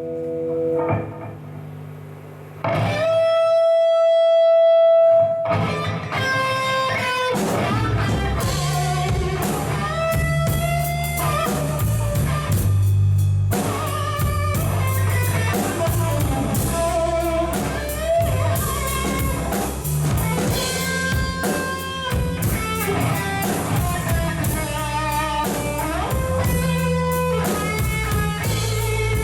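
Rock music with guitar and drums: one long held note a few seconds in, then the full band comes in at about five and a half seconds and plays on steadily.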